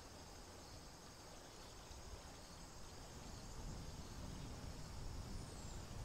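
Faint, steady high-pitched insect chorus, with a low rumble that grows louder in the second half.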